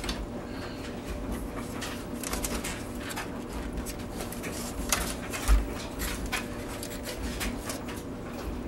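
Handling noise of a VCR chassis being turned around on a towel-covered bench: light clicks and rattles of its plastic and metal parts, with a dull thump about five and a half seconds in.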